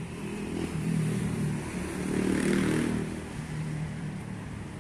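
A motor vehicle passing on the street: its engine hum grows louder to a peak about halfway through, then fades away.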